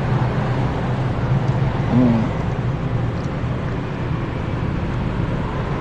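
Street traffic: a steady low hum of motor vehicle engines. A short vocal hum about two seconds in.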